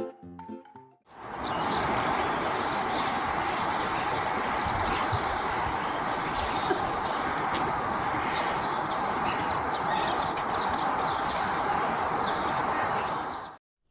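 Small birds chirping over a steady rushing background noise, with the chirps busiest around ten seconds in. The sound starts about a second in and cuts off just before the end.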